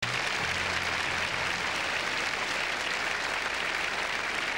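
Large theatre audience applauding steadily, a dense even clatter of many hands clapping.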